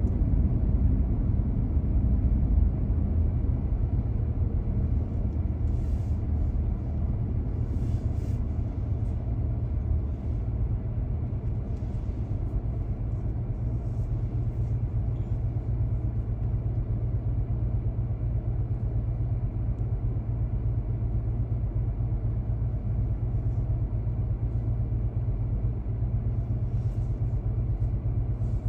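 Car driving at city speed: a steady low rumble of engine and road noise that eases slightly about ten seconds in.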